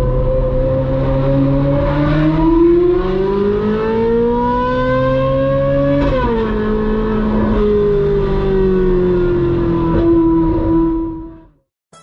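Ferrari 458 Spider's V8 engine under way: the note is steady, then rises as the revs climb. About six seconds in, the pitch drops sharply at a gear change, then sinks slowly as the revs fall. The sound fades out near the end.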